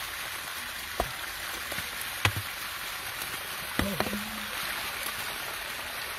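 Dry sand and clay being dug and scraped away with a stick and by hand, over a steady hiss, with a few sharp knocks as the stick strikes the bank. A short pitched sound comes near the middle.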